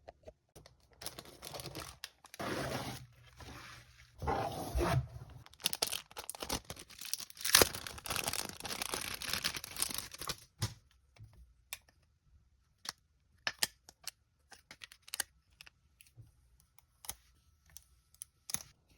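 Packaging being torn open and crinkled in a series of rasping rips for about ten seconds, followed by scattered light clicks and taps as the contents are handled.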